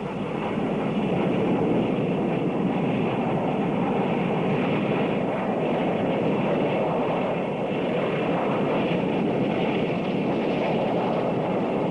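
Union Pacific Big Boy 4-8-8-4 articulated steam locomotive hauling a freight train past, a steady even train noise from the engine and rolling cars with no distinct beat.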